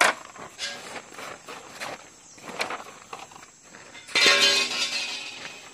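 Footsteps and soft knocks as steel serving trays and bowls are set down on a plastic tarp, with a sharper knock at the very start. About four seconds in, something is struck and rings loudly, fading away over about a second and a half.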